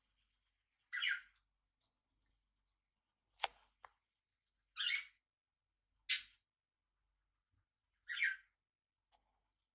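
Small pet parrot giving short calls, five in all, spaced one to two seconds apart.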